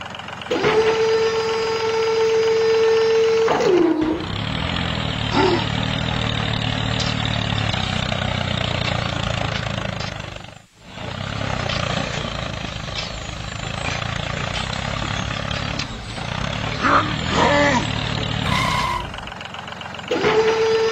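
Tractor engine running steadily. A steady high whine of about three seconds opens it, and the engine sound cuts out briefly about halfway through.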